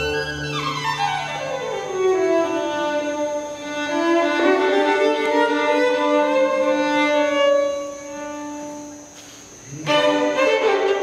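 Solo violin playing alone: a quick run sweeping down, then climbing back up into held notes that grow softer and thinner. The string orchestra, low strings included, comes back in near the end.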